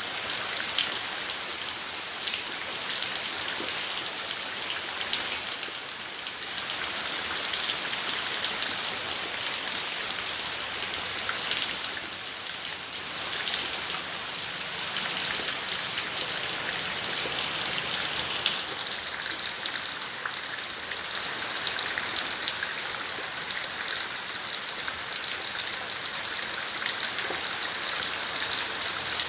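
Steady rain falling, a continuous hiss of drops pattering on surfaces.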